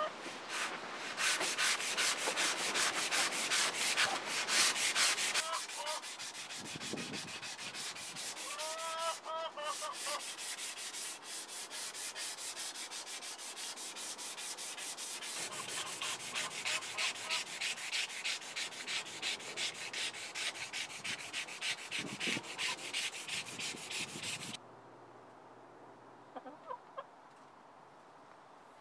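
Sandpaper held by hand scrubbing the rusty steel blade of an old Disston handsaw in rapid, even back-and-forth strokes, taking the rust off the blade. The scrubbing stops abruptly a few seconds before the end.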